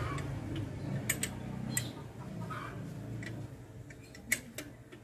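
Sparse, irregular sharp metallic clicks and taps of hand tools working on the alternator bolts, about half a dozen in all, over a low hum that fades away.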